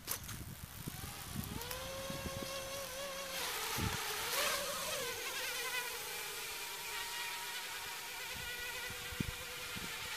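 Small model aircraft engine buzzing: it comes up in pitch about a second and a half in, then holds a steady high drone with a slight waver.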